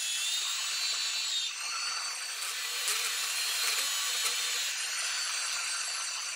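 Portable band saw in a stand cutting through steel drill pipe: a steady cutting sound with high whining tones that waver slightly.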